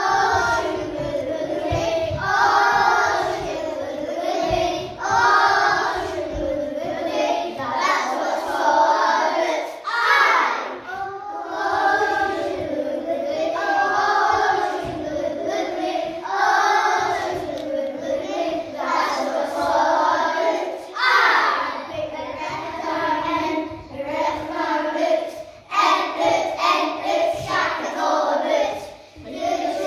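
A group of young children singing a song together, phrase after phrase without a break.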